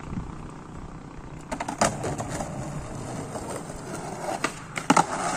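Skateboard rolling on a concrete road, the wheels giving a steady rumble, with sharp clacks of the board about two seconds in and again near the end.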